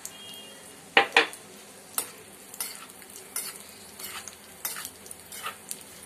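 Cashews and raisins frying in hot ghee in a small metal pan, with a steady faint sizzle. A metal spoon clinks and scrapes against the pan as it is stirred, with two sharp knocks about a second in.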